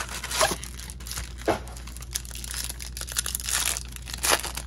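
Trading-card pack wrappers being handled and torn open, a steady crinkling rustle with a few sharper crackles.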